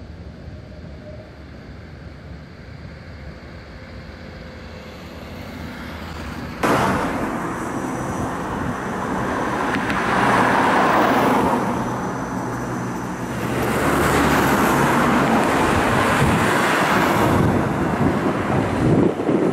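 Low street ambience, then a sudden step up about a third of the way in to louder road traffic: cars passing in two long swells of tyre and engine noise.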